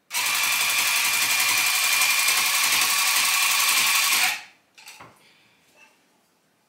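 AK-1 cut-pile electric tufting gun running, its needle rapidly punching yarn through the tufting cloth in a steady buzz for about four seconds, then stopping. A few faint knocks follow.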